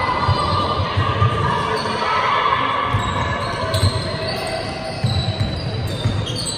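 Basketball being dribbled on a hardwood court: a run of short, irregular thuds in an echoing sports hall.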